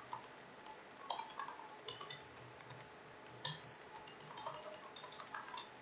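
Faint computer keyboard typing: irregular short key clicks, some in quick clusters, starting about a second in.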